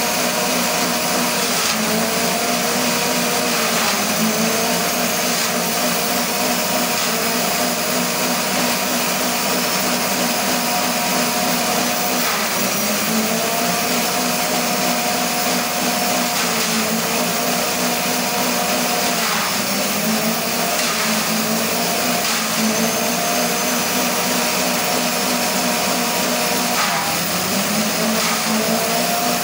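Petrol-engine-driven grass chopper running at speed and shredding stalks, a steady whirring with a constant chopping hiss. The engine note sags briefly and recovers several times as bundles of stalks are fed in and load the blades.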